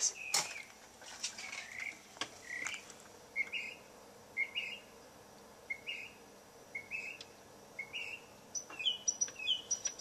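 A bird singing: a short rising phrase repeated about once a second, then a quicker run of higher, sharper notes near the end.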